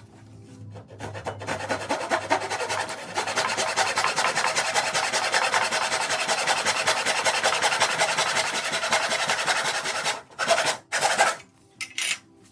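An abrasive rasping rub against wood, as in hand sanding or filing. It builds about a second in, runs steadily for roughly nine seconds, then stops, followed by two short strokes near the end.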